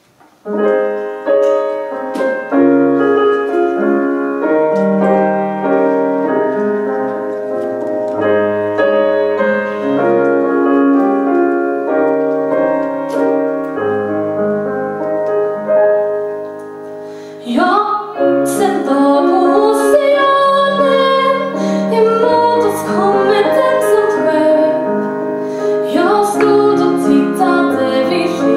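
Piano playing slow, sustained chords; a little over halfway through, a woman's voice starts singing over it.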